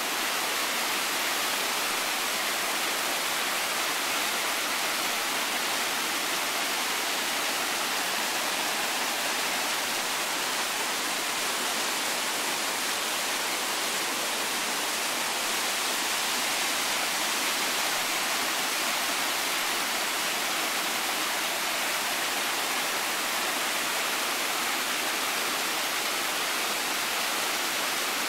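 Steady rush of running water from Shelving Rock Brook, an even hiss with no breaks or changes.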